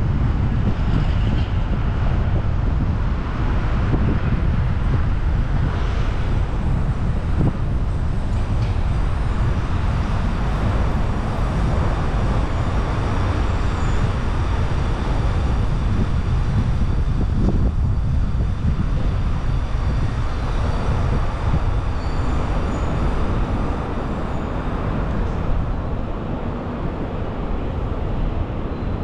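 Steady road and engine noise from a car driving in city traffic, easing slightly near the end.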